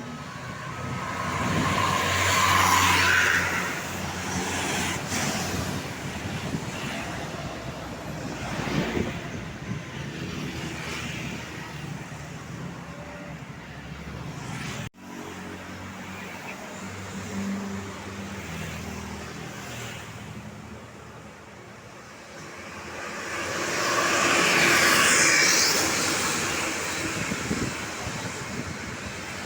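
Road traffic with large buses passing close by. Their road and engine noise swells and fades twice, loudest about three seconds in and again near the end. There is a sudden break about halfway.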